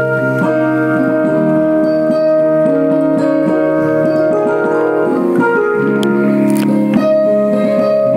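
Digital keyboard played with both hands: full held chords that change every second or two, with a melody moving on top.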